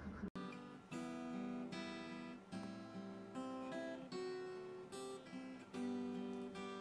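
Acoustic guitar played in a slow melody of plucked single notes and chords, a new note or chord about every half second.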